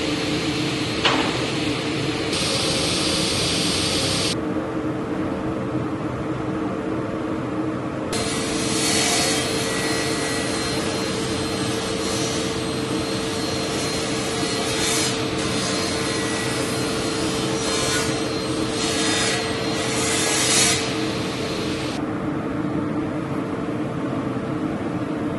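Table saw running steadily with a constant hum, its blade cutting white oak strips in several passes, so the hissing cutting noise comes and goes while the motor tone holds.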